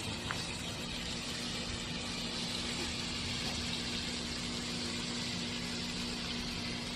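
Pork belly sizzling on a round grill pan, a steady hiss, with a low steady hum underneath.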